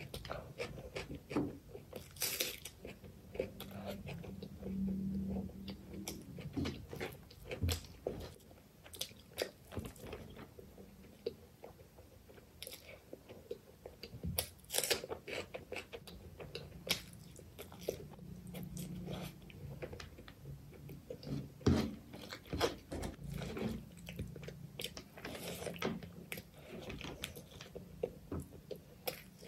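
Close-miked eating of chicken liver curry with rice by hand: wet chewing with crunching bites and many sharp mouth clicks.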